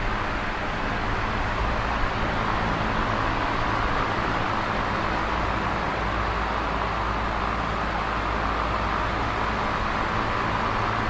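Electric fan running steadily: an even rush of moving air with a faint low motor hum underneath, unchanging throughout.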